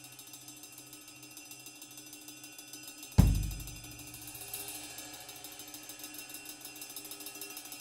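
A drum kit during a sound check: faint quick ticking, then one hard hit about three seconds in, bass drum and cymbal together, ringing out. A lighter cymbal accent follows about a second and a half later.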